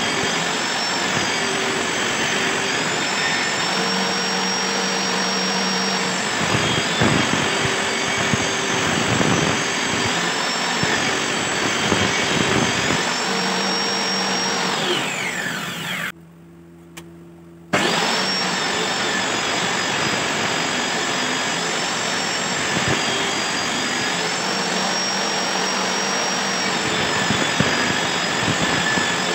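Table saw running and ripping a wooden board into thin strips along the fence; its high whine dips in pitch each time the blade takes the cut. About halfway through it winds down and falls much quieter for a second or two, then comes back at full speed.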